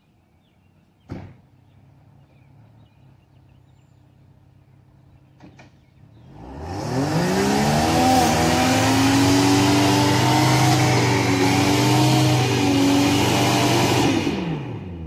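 Chevrolet TrailBlazer's engine idling quietly, then revving up hard about six seconds in and held at high revs under the load of towing a stuck Suburban off a log pile, with a broad rushing noise over it, before the revs drop near the end. A single knock sounds about a second in.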